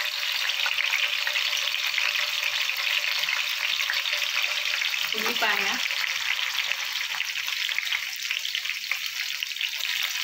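Green chillies and cumin seeds sizzling steadily in hot oil in a frying pan for a tempering. Chopped onion goes into the pan about halfway through, and the sizzling carries on.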